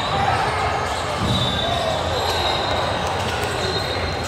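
Youth basketball game in a gym: a basketball bouncing on the court amid the chatter of players and spectators, with a faint high squeak in the middle and again near the end.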